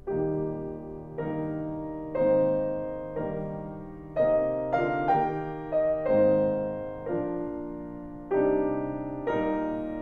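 Solo piano playing a slow melody in chords after a brief hush. Each chord is struck about once a second and left to ring and fade before the next.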